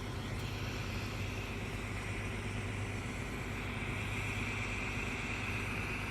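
Idling fire truck engine, a steady low hum. Over it a faint, steady high tone grows louder about halfway through; it might be the fire alarm sounding inside the building.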